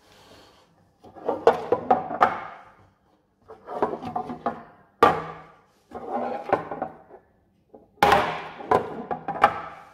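A crumpled thin sheet-metal can, collapsed by implosion, being knocked over and turned on a wooden counter. Its dented tin sides clatter and crackle in four bursts, with sharp knocks about five and eight seconds in.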